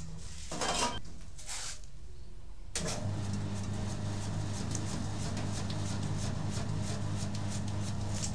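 Electric chip-slicing machine running: a steady motor hum with rapid irregular ticking as the rotating blade disc cuts through tubers pushed down the feed chute. The hum drops out for about two seconds near the start, then comes back abruptly.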